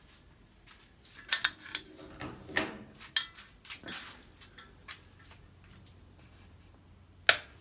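Several clinks and knocks, then near the end a single loud, sharp click of a plastic wall light switch being flipped.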